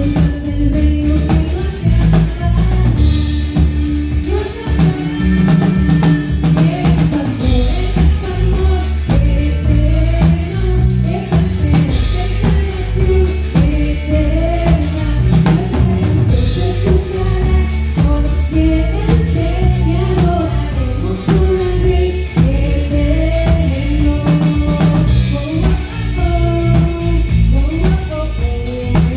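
A live band playing: drum kit, congas, electric guitar and bass keeping a steady beat, with a sung melody over them.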